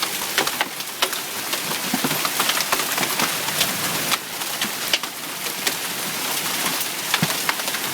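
Heavy hail pelting down, with hailstones up to an inch across: a dense steady hiss with many sharp clicks of stones striking.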